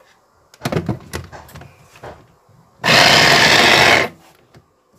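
A few knocks and clatters, then a small electric chopper runs in one short burst of about a second, its blade grinding mint, green chillies and garlic for green chutney, and stops abruptly.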